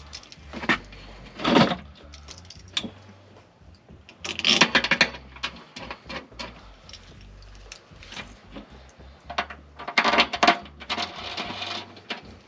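Metal mounting bolts and bracket arms of a blower motor being handled and threaded by hand: scattered metallic clinks and rattles, with louder bursts of handling noise about four and a half seconds in and again near the end.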